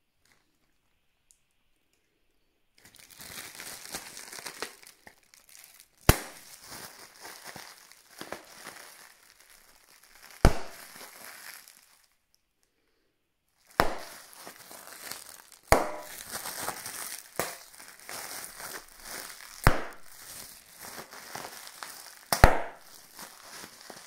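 Plastic air pillows from parcel packaging are crinkled and squeezed by hand until they burst, with six sharp, loud pops in all. The crinkling stops for a moment about halfway through, then starts again.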